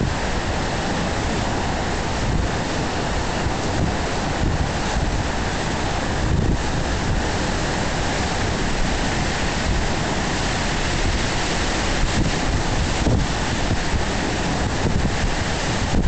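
Strong storm wind buffeting the microphone in gusts, over the steady rush of wind-driven waves breaking across a river.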